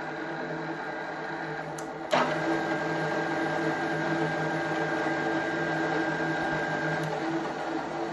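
IMA IG 30-8 geared-head drill press running, its gearbox giving a steady hum. About two seconds in there is a sudden click and it runs louder, with a thin high whine added until near the end.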